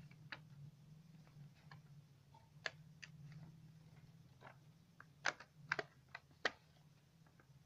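Sheets of craft paper being folded and creased by hand: faint rustling with scattered sharp clicks, a cluster of four louder ones a little after five seconds, over a low steady hum.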